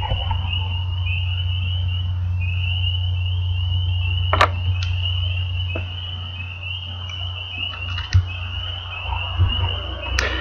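A chorus of frogs calling outside at night: overlapping short, high trills repeat one after another without a break. A steady low hum runs underneath, and there is a single sharp click about four seconds in.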